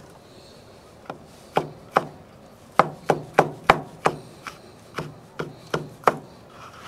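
Chef's knife dicing a tomato on a plastic cutting board: about a dozen sharp knocks of the blade striking the board, coming quickest in a run near the middle.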